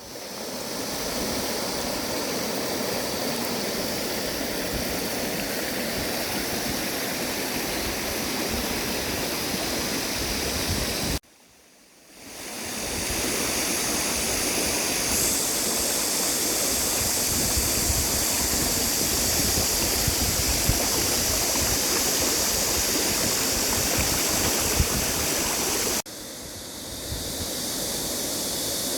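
Mountain valley stream rushing steadily. It drops out briefly about eleven seconds in and fades back up, and the sound changes again near the end.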